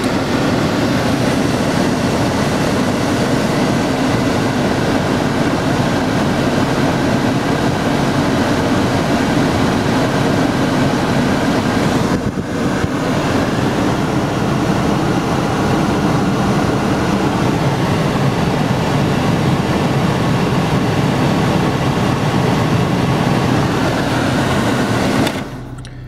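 GM Astra's cabin blower fan running at high speed with the air conditioning switched on, a loud steady rush of air from the dashboard vents over the running engine. The sound dips briefly about halfway through and cuts down sharply near the end.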